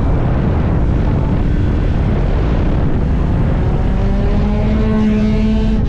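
Yamaha MT motorcycle engine and exhaust under way, a heavy, steady rumble. From about three and a half seconds in, a clear engine note rises slightly and then holds.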